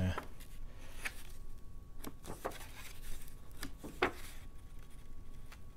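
Pages of an old paper booklet being turned by hand: several short, crisp paper flicks and rustles, roughly one a second.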